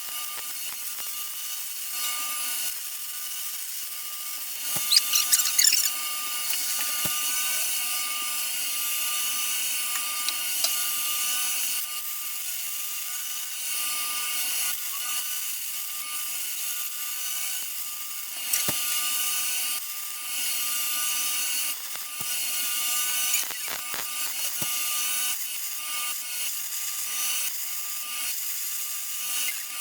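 Angle grinder running steadily and grinding steel, with a few short louder scrapes as the disc bites.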